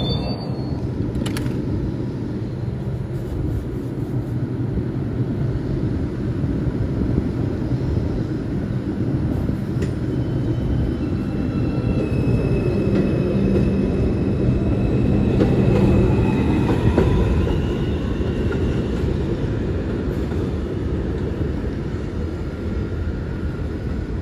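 R142 subway train pulling out of an elevated station: a steady rumble of wheels on the rails, with a rising whine from the electric traction motors as it picks up speed. It grows a little louder past the middle, then eases off as the train moves away.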